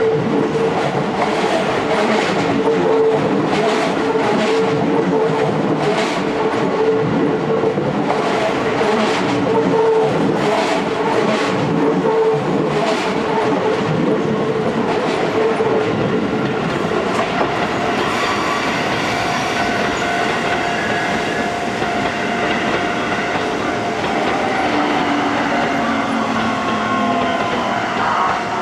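Keio Line electric train running over the level crossing, its wheels clacking over the rail joints about once a second. The clacks stop about halfway through, and a steadier run with even tones continues.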